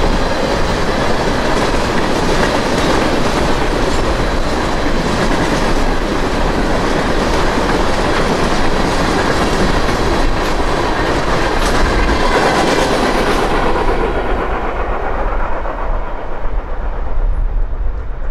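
Norfolk Southern freight train's cars passing at speed, steel wheels clattering over the rails. The noise dulls and fades over the last few seconds as the train's end goes by.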